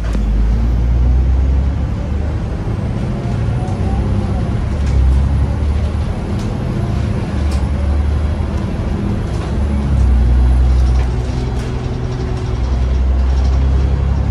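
Cummins diesel engine of an Alexander Dennis Enviro 500 MMC double-decker bus running under way, heard from inside the cabin as a loud low drone that swells and eases several times.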